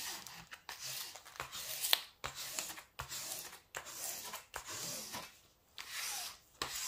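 Hands rubbing a protective release sheet back down onto a glue-coated diamond-painting canvas: repeated dry swishing and rustling strokes as the sheet is re-stuck to the adhesive.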